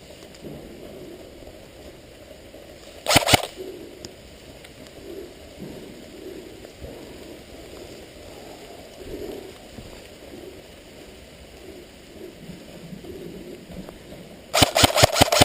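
Airsoft gun firing: a short burst of a few shots about three seconds in, then a rapid string of about eight shots near the end, over low background noise.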